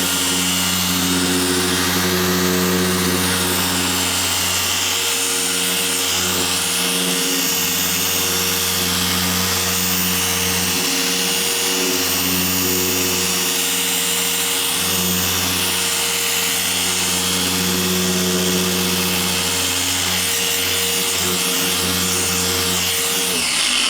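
Electric car polisher running steadily with a buffing pad on the paint, working HD Speed polish into a panel to cut out sanding scratches.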